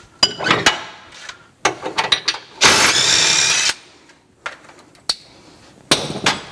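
Handheld power drill run once for about a second, unfastening ballast weights from under the rear of a drag-race chassis, with short metallic clanks and clicks of tools and parts before and after.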